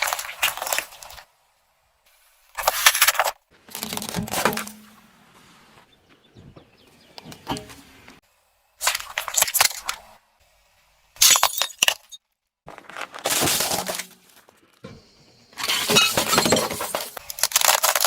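Objects crushed and burst under a car tyre: a string of short, loud crunching, cracking and breaking bursts, with sudden silences between them.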